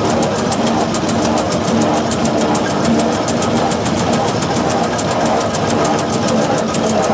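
Fowler B5 steam traction engine running along a road, heard from its footplate: the engine and its motion beat and clatter in a steady rhythm of about five or six strokes a second.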